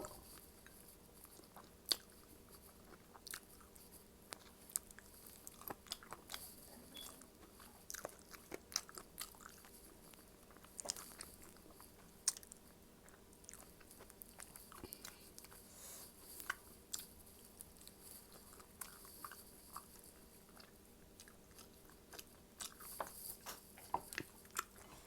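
A person eating: irregular chewing with many sharp crunchy clicks and mouth smacks.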